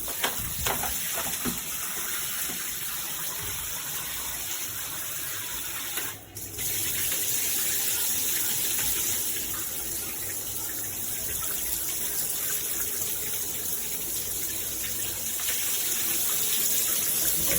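AMORIX shower head spraying water: a steady rush of running shower water that briefly dips about six seconds in.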